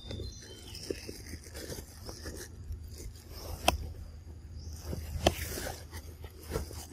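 Scraping and rustling of movement over rock and dry leaves, with two sharp clicks, one a little past the middle and one later.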